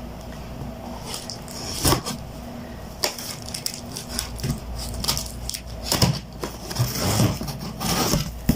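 Parcel packaging being handled and torn open, with irregular crinkling and crackling.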